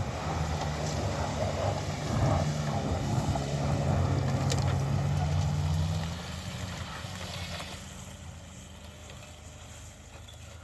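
An off-road SUV's engine pulls steadily under load as it climbs a snowy hill. The engine then fades away after about six seconds.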